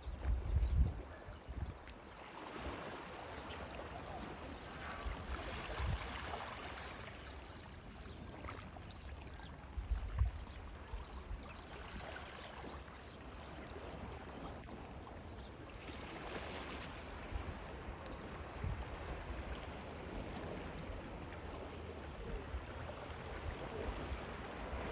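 Small sea waves washing and trickling among shoreline rocks, the water noise swelling and easing. A few low thumps, near the start and about ten seconds in.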